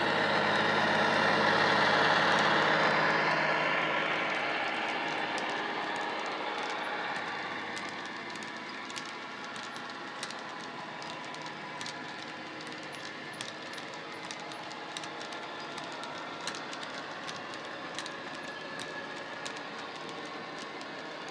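Model Class 57 diesel locomotive's ESU sound decoder playing diesel engine sound through an EM1 speaker, loudest as the loco passes in the first few seconds, then fading as it moves away. The wagons behind it roll by with frequent light clicks of model wheels over the track joints.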